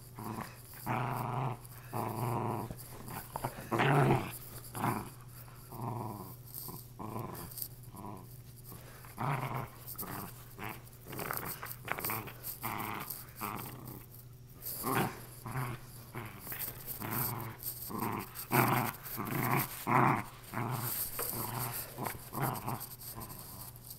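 Lakeland terrier play-growling in repeated short bursts while tugging on a chewed-up stuffed toy.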